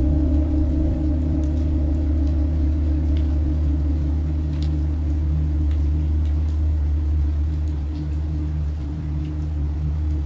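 A deep, steady rumbling drone of a few held low tones, with faint scattered clicks above it.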